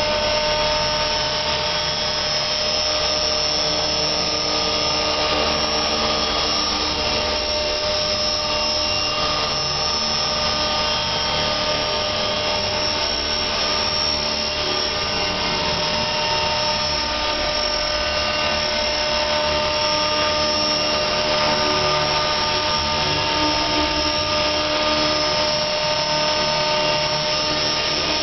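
Align T-Rex 450 Pro electric RC helicopter hovering: the steady high whine of its motor and gears with the rotor spinning, holding one pitch throughout.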